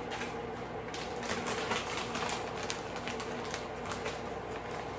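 Irregular clicks and light knocks, several a second, from kitchen utensils and containers being handled while a casserole mixture is put together, over a steady low hum.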